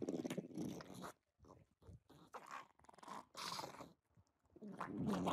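A pug crunching and chewing a piece of raw broccoli, in irregular bites with short pauses between them. Near the end a louder, steady pitched sound starts.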